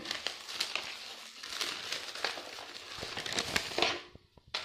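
Packaging crinkling as it is handled, a dense crackle full of small clicks that dies down about four seconds in.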